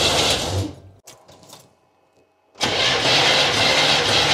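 Chevrolet L48 350 small-block V8 cranking over on its starter for a compression test. The cranking stops just under a second in. After a short near-silent gap with a few faint clicks, it starts again about two and a half seconds in and keeps going.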